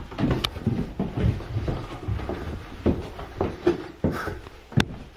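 Footsteps and shuffling as a person walks slowly through a room, with scuffs, thuds and a few sharp clicks of the handheld phone being jostled.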